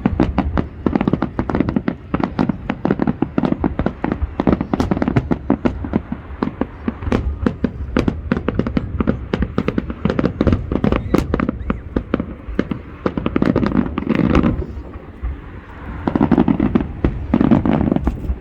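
Aerial fireworks bursting in rapid, dense succession, many sharp bangs and crackles overlapping, with a short lull about three-quarters of the way through before the bangs resume.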